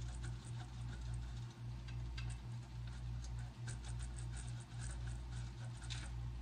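A block of Parmesan rubbed down a stainless-steel box grater in quick, irregular scraping strokes as the cheese is grated fresh, over a steady low hum.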